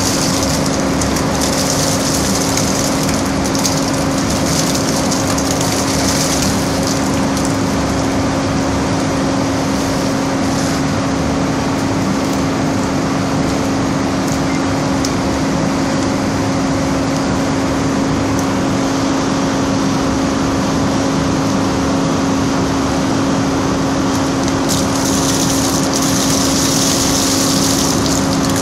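Processing-plant machinery running with a steady hum, under waste water pouring off a chute and splashing into a floor drain. The splashing is strongest in the first few seconds and again near the end.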